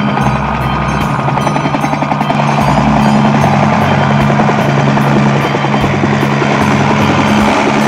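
Cartoon helicopter sound effect: a steady rotor chop with a low hum, over light background music.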